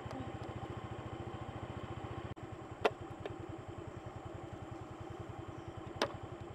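Small motorcycle engine running with a quick, even beat, with a few sharp clicks over it.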